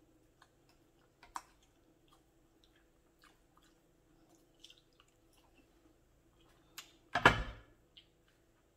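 Quiet chewing of soft food, with scattered small mouth clicks and light ticks of a fork on a glass plate. About seven seconds in there is one brief, louder sound.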